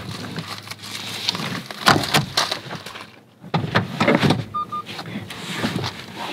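Knocks, clunks and rubbing of a Hyundai Tucson's second-row seat being folded flat and pressed down by hand. A short double beep sounds about two-thirds of the way through.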